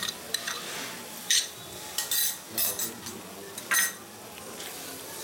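Spice paste (masala) with a splash of water simmering and sizzling in a steel kadai, with a steel spatula scraping against the pan a few times.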